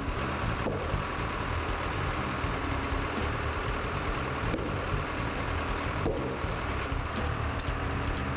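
Skid steer loader's engine running steadily, with a few light clicks near the end.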